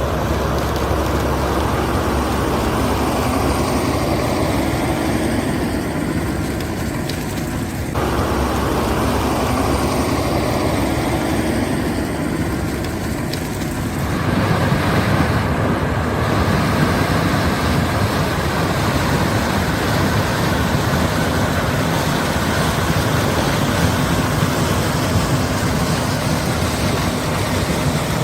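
John Deere S680 combine harvester running while harvesting corn: a loud, steady drone of engine and machinery. The sound changes abruptly twice, about 8 and 14 seconds in.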